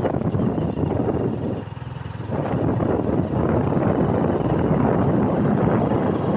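Motorcycle running along at road speed, its engine noise mixed with the rush of riding wind on the microphone; the sound eases briefly about two seconds in.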